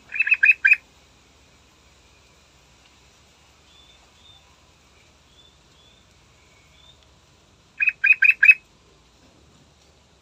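Yellow-vented bulbul singing: a short burst of three quick clear notes at the start, and another burst of four about eight seconds in, with faint high chirps between.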